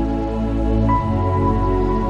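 Slow new-age meditation music of long held tones over a deep sustained bass; a new high note comes in about a second in.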